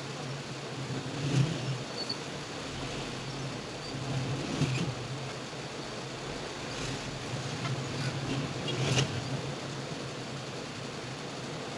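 Steady low background hum, with a few faint light clicks of metal tweezers working on the opened phone's flex cables and board.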